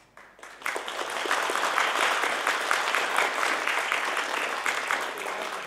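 Applause from the audience and the cast on stage, breaking out sharply under a second in and holding as a dense, steady clapping.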